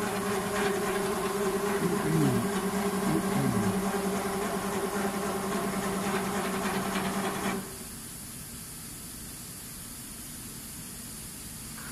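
CNC router (pantograph) running with a steady mechanical hum and hiss, with a few short downward pitch sweeps as its motors change speed. About seven and a half seconds in the hum cuts off abruptly, leaving a quieter steady hiss.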